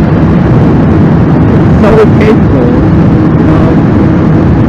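Steady wind rush and the engine of a 2008 Honda CBR1000RR, an inline-four sportbike, cruising at highway speed.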